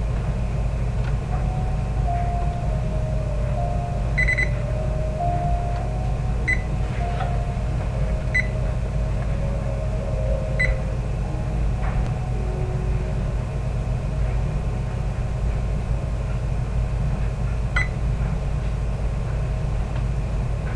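Short electronic beeps from a kitchen appliance's control panel, five of them spread over the stretch, the first a little longer. Beneath them runs a steady low rumble, with faint classical piano music.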